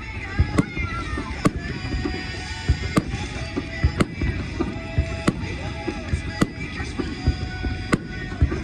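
Aerial firework shells bursting overhead, a sharp bang about every second over a continuous low rumble of smaller reports.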